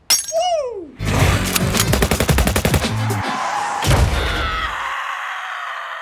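A string of sound effects: a pitched tone sliding steeply down, then a rapid burst of machine-gun-like fire lasting about two seconds, then a hit followed by a ringing tone that slowly fades.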